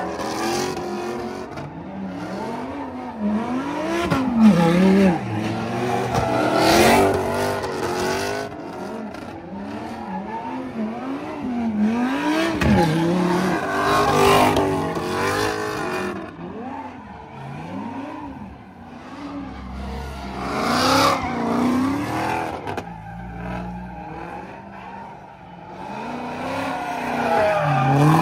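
Car engines revving hard, their pitch repeatedly rising and falling, with tires squealing as cars slide and spin in a pit; louder surges come every few seconds.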